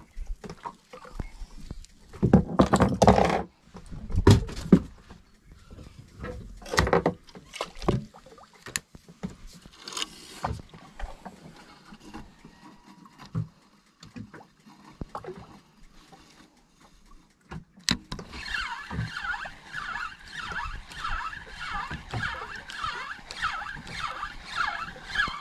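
A few loud bursts of handling noise in the first seconds. Then, from about 18 seconds in, a Penn 4000 spinning reel being cranked: a steady whirr that pulses about twice a second with the turns of the handle as line is retrieved.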